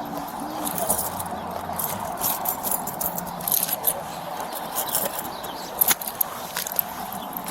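Clothing rustling and small items and coins clicking as pockets are gone through during a pat-down search, over a steady background hum, with one sharp click about six seconds in.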